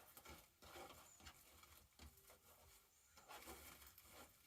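Near silence with faint rustling and a few light taps as hands straighten and handle small craft pieces.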